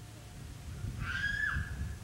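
A high-pitched squeal about a second long, starting halfway through, its pitch dipping sharply for a moment before it holds steady. It sits over a low steady hum.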